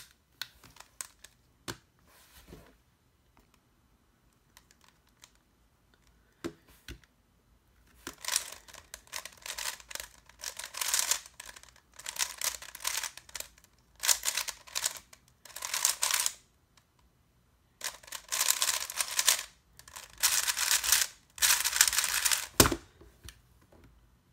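Sengso Yufeng 3x3 speedcube being turned fast in a speedsolve: dense bursts of clacking, rattling turns with short pauses between them, after a few seconds of scattered small clicks while the cube is handled. Near the end, a single thump as the hands slap down on the timer to stop it.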